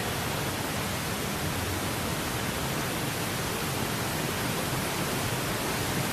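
Steady, even hiss with a low rumble underneath: the background noise of a diving venue.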